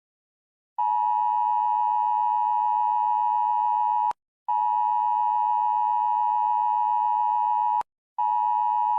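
An emergency alert attention tone: a loud, steady electronic tone sounded three times, each about three seconds long with short breaks between. It starts about a second in, and the third tone runs on past the end.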